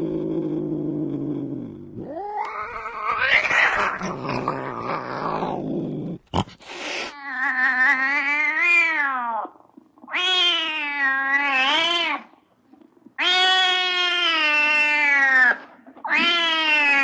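An angry cat growling low, then hissing, then letting out four long yowls of about two seconds each, each rising and then falling in pitch, with short pauses between them.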